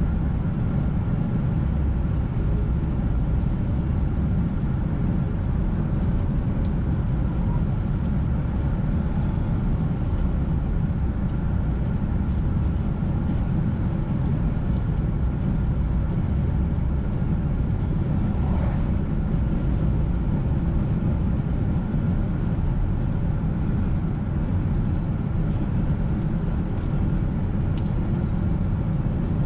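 A car driving on a wet road: a steady low rumble of tyres and engine, with faint scattered ticks over it.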